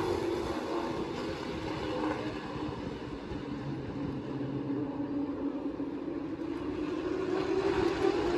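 Racing super trucks' engines running at speed around a short oval, heard as a steady drone. It eases off slightly in the middle, then grows louder with a slight rise in pitch near the end as the field comes around again.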